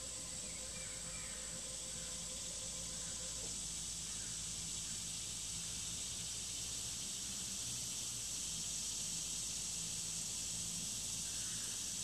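Outdoor insect chorus: a steady high-pitched drone with a faint low hum underneath. A faint mid-pitched tone stops about three and a half seconds in.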